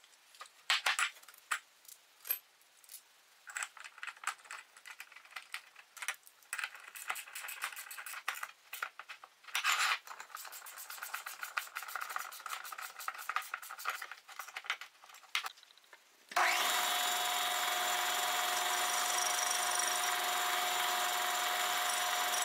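Metal castings handled and set down on a workbench: a run of clinks, knocks and scrapes, loudest about ten seconds in. About sixteen seconds in, a metal lathe starts being heard running, a steady mechanical drone with a few held tones.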